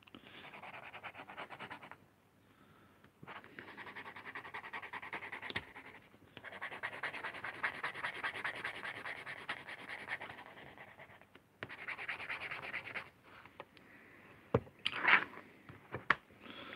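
Hand lino-cutting tool gouging through a linoleum block, a fine rasping scratch in several long strokes with short pauses between them. A few sharp clicks and knocks near the end.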